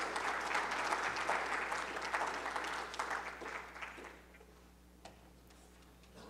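Audience applauding, a dense patter of clapping that dies away about four seconds in, leaving a few isolated knocks.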